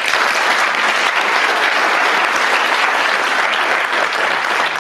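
Audience applauding steadily, many hands clapping together in a small auditorium.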